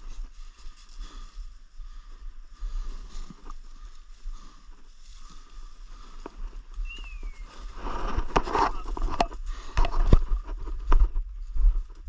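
Rustling and crackling in dry leaf litter and brush, busiest from about eight to eleven seconds in, over a steady low wind rumble on the microphone.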